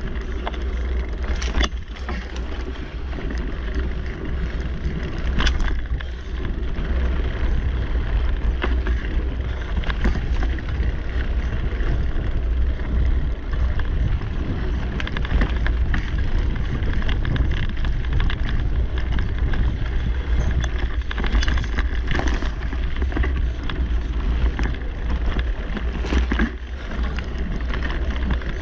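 Mountain bike riding along a dirt singletrack: steady tyre and trail noise under a heavy wind rumble on the camera's microphone, with occasional knocks and rattles from the bike over bumps.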